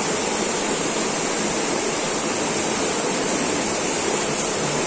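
Steady outdoor background noise: an even rushing hiss with a constant high-pitched band over it, and no distinct sounds.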